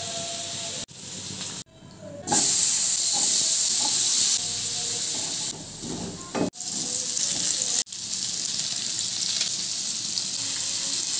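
Pork strips and chopped vegetables sizzling in hot oil in a wok, a steady high hiss that stops and restarts abruptly several times as short clips are spliced together.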